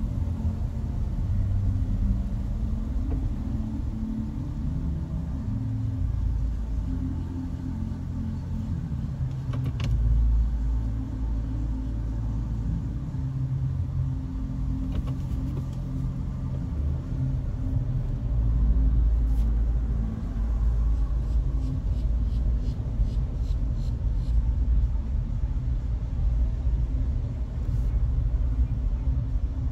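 A car being driven: a steady low rumble of engine and tyre noise that swells and eases, with a short run of faint ticks about two-thirds of the way through.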